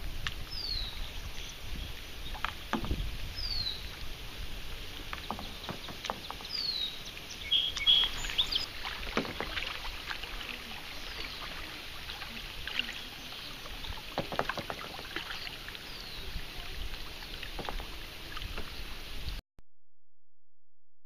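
Kayak paddling on marsh water: paddle splashes and knocks over a steady lapping of water, with a bird repeating a short falling high note every few seconds. The sound cuts off abruptly near the end.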